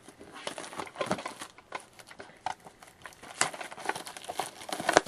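Plastic shrink-wrap crinkling and cardboard rustling as a sealed box of trading cards is torn open by hand, in a run of irregular crackles.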